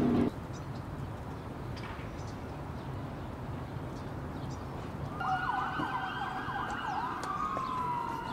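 An emergency-vehicle siren comes in about five seconds in, over a steady low background rumble. It makes quick up-and-down sweeps, then settles into a long falling wail. Music cuts off just after the start.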